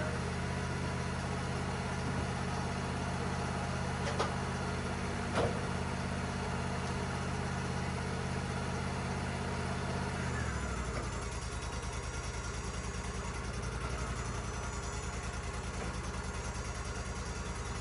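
Wood-Mizer LT35 sawmill engine running steadily, then about ten seconds in dropping to a lower, pulsing idle. A couple of short knocks come around four and five seconds in.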